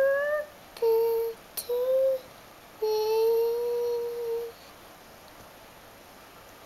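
A toddler humming four held notes in a high voice, the last one the longest, stopping about halfway through.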